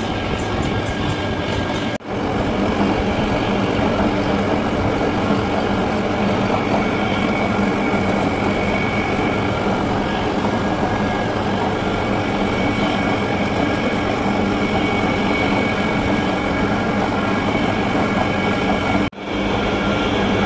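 Metal lathe running steadily while drilling and turning a metal tractor bush, the machine's drone mixed with the noise of the cut. The sound cuts out very briefly twice.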